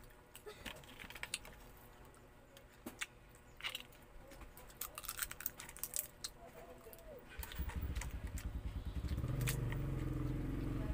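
Crab shells cracking and clicking as boiled crab is pulled apart by hand and eaten, a scattered string of sharp snaps and clicks. About seven seconds in, a low, steady engine rumble comes in and becomes the loudest sound.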